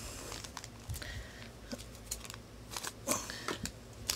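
Thin plastic wrapper crinkling as it is handled: irregular short crackles and rustles.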